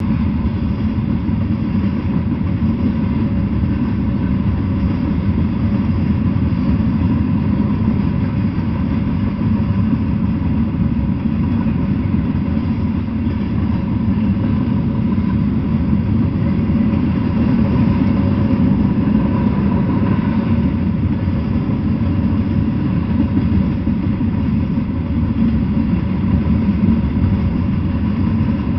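Freight train of flatcars loaded with steel coils rolling past, a steady rumble of wheels on rail.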